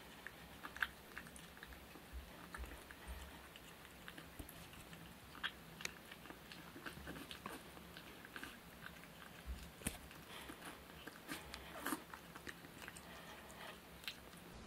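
Two kittens eating wet cat food from a bowl: faint, irregular chewing clicks.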